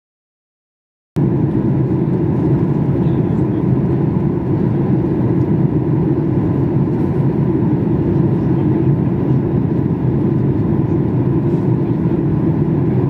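Steady cabin noise inside a Boeing 737 MAX 8 airliner in flight: a low, even rush of jet engine and airflow noise with a faint steady tone above it. It cuts in about a second in, after silence.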